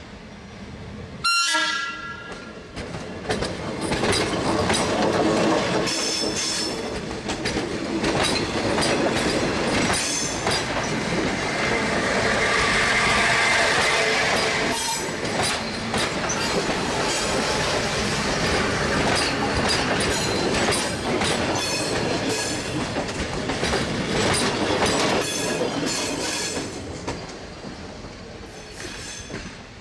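A train horn sounds briefly about a second in. A heavy train then passes, its wheels clattering over worn, uneven rail joints in a long run of repeated impacts that fades near the end.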